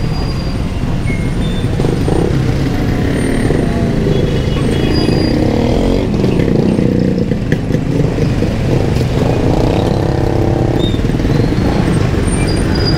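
Busy street traffic: vehicle engines running close by in a steady din, with one engine's note standing out for a couple of seconds about nine seconds in.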